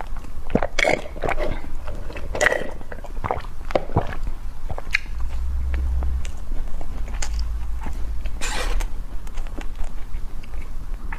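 Close-up eating sounds: sipping through a straw, then biting and chewing a soft cake, with wet mouth clicks and smacks. A brief breathy hiss comes about eight seconds in.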